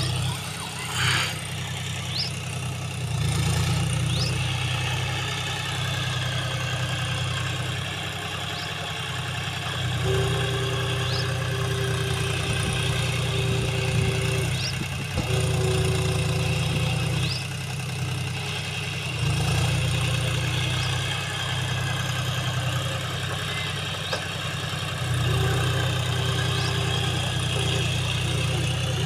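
John Deere tractor's diesel engine working as it pushes and levels loose sand with a rear blade, its steady drone getting louder and easing off every few seconds as the load comes on and off.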